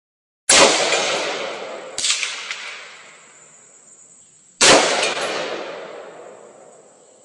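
Three single gunshots, about half a second, two seconds and four and a half seconds in, each sharp crack followed by a long echoing decay that fades over two to three seconds.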